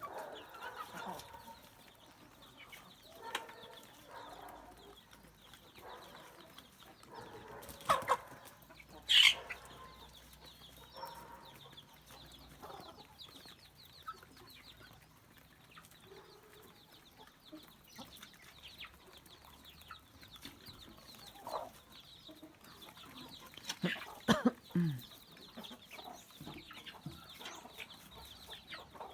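Chickens clucking here and there, with a few louder calls about eight seconds in and again near twenty-four seconds.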